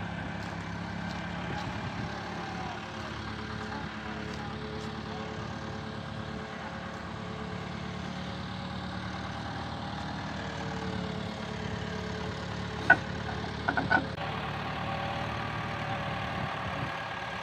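Farm tractor and skid-steer loader engines running at a steady idle. A few sharp knocks come about three quarters of the way through.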